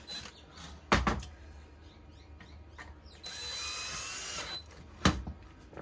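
Small cordless drill-driver running for about a second, driving a small screw into the plastic housing of a battery multi-tool. A sharp knock comes shortly before it, and another after.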